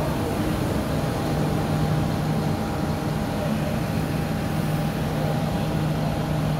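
Several large farm tractors' diesel engines idling together, a steady low drone with a thin higher tone above it.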